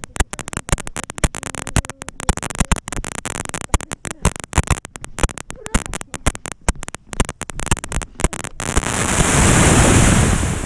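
GoPro Hero 5 Session's faulty audio: dense crackling and popping, broken by many brief dropouts to silence. Near the end the crackle gives way to a rush of noise that swells and fades.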